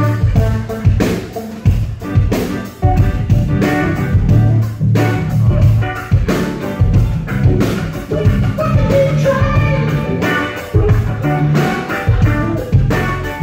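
Live rock band playing: electric guitar over a drum kit with a steady beat, and a voice singing.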